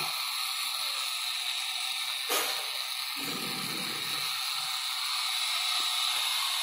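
Small electric motor driving a conveyor belt, running steadily, with one sharp click about two seconds in.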